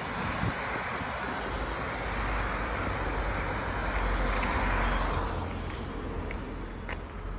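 A car passing on the road: tyre and engine noise swells to its loudest about four to five seconds in and then fades.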